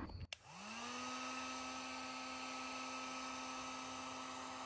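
Heat gun switched on, its fan motor spinning up in about half a second to a steady whine that then holds level, heating carbon-fiber vinyl wrap on a skid plate. A click comes just before the whine starts.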